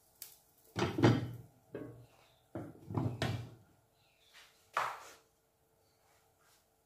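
Glass pan lid being picked up and set down on a frying pan: a few separate clunks and clatters, the loudest about a second and three seconds in, and a shorter knock near five seconds.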